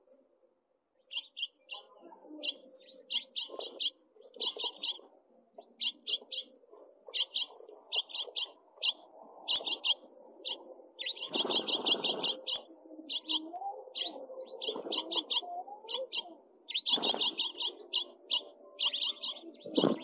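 House finch young begging at the nest: quick trains of high, rapid chirps repeating every second or so, starting about a second in. Underneath is rustling and wing fluttering from the birds moving in the nest, with two louder surges.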